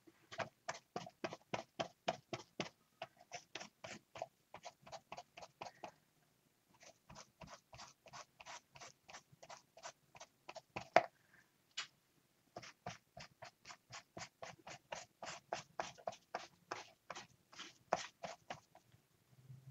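Quick rhythmic strokes of a hand-held applicator worked over a stencil on a paper journal page, about four or five a second, in three runs broken by short pauses about 6 and 12 seconds in. One sharper tap about 11 seconds in.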